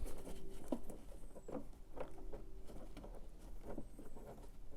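Light scratching and scattered small clicks of a cabin pollen filter being handled and pushed into its plastic housing.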